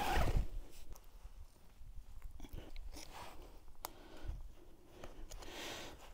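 Faint crunching footsteps on dry grass and pine litter, then scattered small clicks and rustles as a tent stake and its guyline are worked at a corner.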